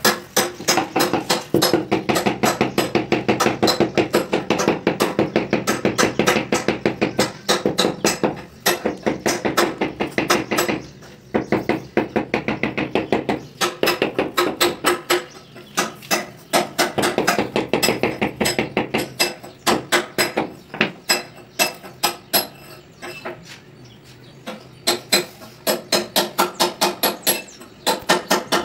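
A hammer tapping granite pieces down into mortar, in runs of quick light taps several a second with short pauses, over background music.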